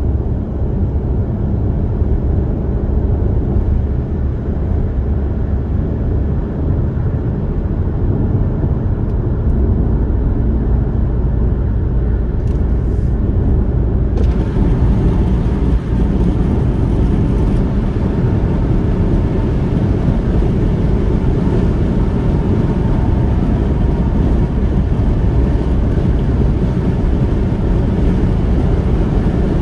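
Steady road and tyre noise of a car cruising on a highway, heard from inside the cabin. About fourteen seconds in, the hiss suddenly grows brighter in the upper range, as with a change of road surface.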